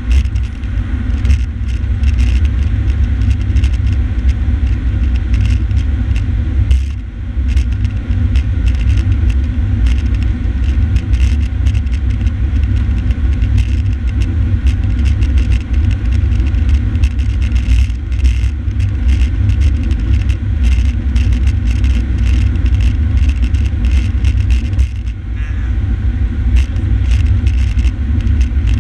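Fire engine driving at highway speed: a loud, steady low rumble of engine, road and wind noise, with many small ticks and rattles over it.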